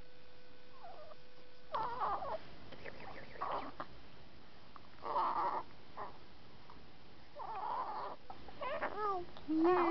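A two-week-old baby cooing: about half a dozen short vocal sounds, the last few gliding down in pitch.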